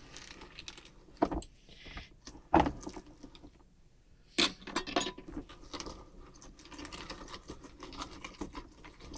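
Vintage Sargent and Company hand-cranked meat grinder being cranked, grinding up a pickle. It makes irregular metallic clicks and clunks, with a few louder knocks in the first half.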